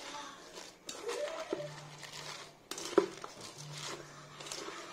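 Salad leaves being tossed and mixed with a plastic spoon in a bowl: soft rustling with scattered clicks and knocks of the spoon against the bowl, the loudest a sharp knock about three seconds in.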